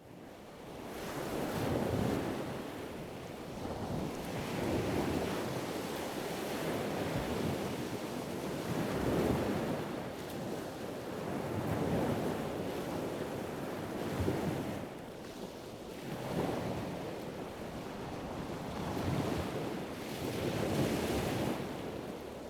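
Sea waves washing in slow swells that rise and fall every two to three seconds, with wind on the microphone.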